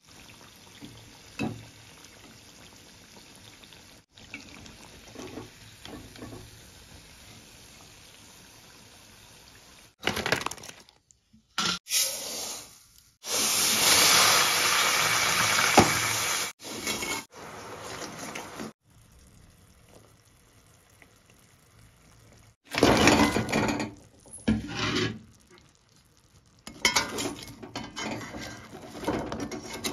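Kitchen frying sounds: hot oil sizzling faintly around pastries in a wok, with a slotted spoon clinking now and then. In the middle comes a loud rushing pour into a steel pot of sugar lasting about three seconds, and the frying grows louder and choppier near the end.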